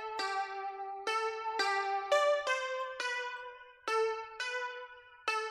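A melodic line of plucked-sounding keyboard notes played back from a DAW, each note struck and fading, about two a second with a brief lull a little past the middle, coloured by the RC-20 Retro Color effect plugin.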